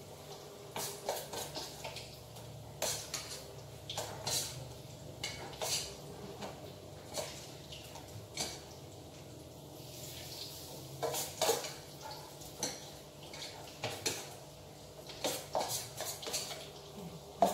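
Small metal-on-metal clinks and scrapes as a utensil works around the rim of a round metal pan, coming irregularly, roughly one every second or so.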